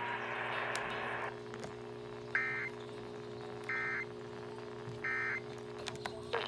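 Emergency Alert System end-of-message code: three short, identical bursts of SAME digital data tones about 1.3 seconds apart, marking the end of the test broadcast. A hiss of static runs for the first second or so, with a steady low hum underneath.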